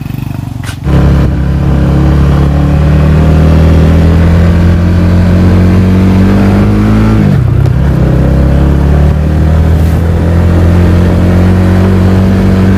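Motorbike engine running under load, heard close up from on the bike. It gets suddenly louder just under a second in, its pitch creeps slowly upward, dips sharply about seven seconds in, then holds steady.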